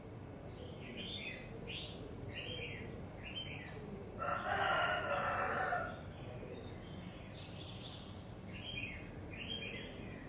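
A rooster crows once, a call of about two seconds starting about four seconds in, over small birds chirping in short repeated calls.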